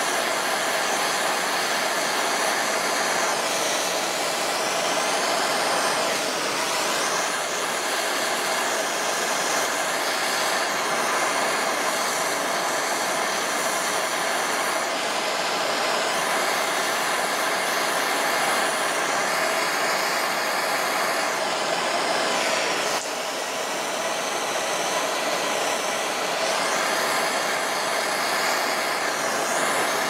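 Propane torch flame hissing steadily, with its level dipping briefly a few times.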